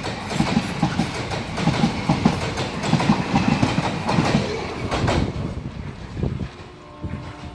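Coaches of a passenger train rolling past, their wheels clattering in a fast rhythm over the rail joints under a rushing noise. The sound thins and fades away about six seconds in.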